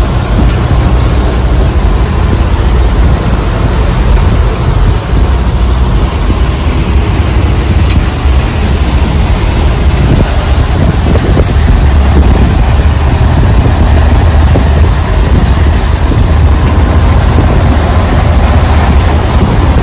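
A boat's engine running steadily, a deep low rumble with a constant hiss above it.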